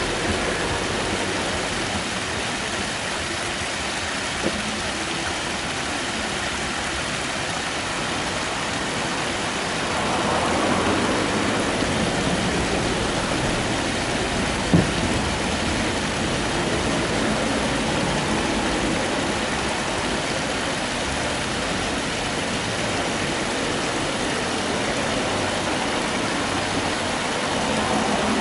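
Shallow creek water running over pebbles, a steady rushing that swells a little about ten seconds in. Two brief sharp clicks cut through it, the louder one about fifteen seconds in.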